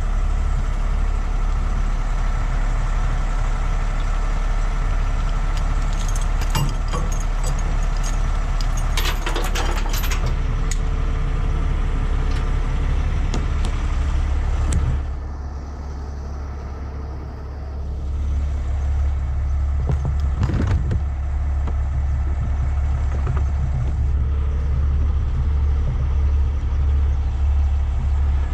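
Diesel engine of a heavy rotator tow truck running steadily, driving the boom hydraulics during a lift. There are scattered clicks and clinks about six to ten seconds in and again around twenty seconds, and the sound drops for a few seconds a little past halfway.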